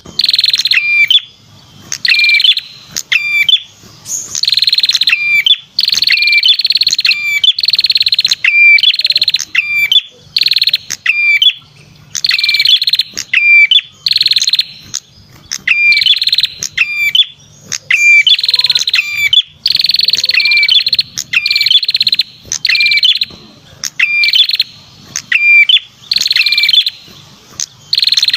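Lure recording of a perenjak kepala merah (red-headed prenjak) singing: loud, high-pitched phrases of sharp notes and short rapid trills, repeated about once a second without a break.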